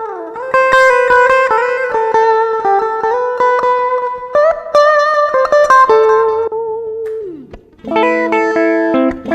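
Bass guitar played through a Zoom 708 II bass multi-effects pedal: a melodic line of single plucked notes with pitch bends, a slide down in pitch about seven seconds in, then a fuller run of notes from about eight seconds.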